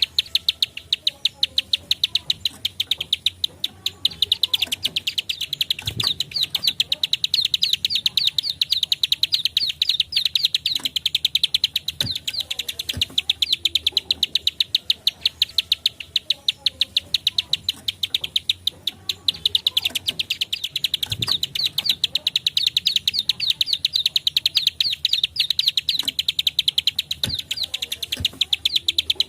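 Prinia (ciblek sawah / prenjak klik) giving its rapid clicking call, a fast unbroken string of high, sharp ticks at about seven a second that goes on without a pause.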